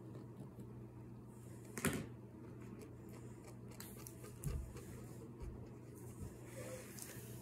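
Quiet room with a steady low hum, a sharp click about two seconds in and a dull thump about halfway through, with a few fainter knocks.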